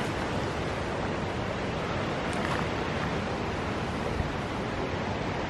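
Steady rushing noise of hurricane-force storm wind, with no breaks or distinct events.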